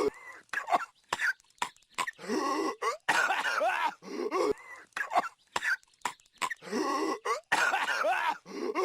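Patrick Star's exaggerated cartoon coughing fit, played as a loop that repeats about every four seconds: strained, rasping hacks with a sliding pitch, each run followed by several short, sharp coughs.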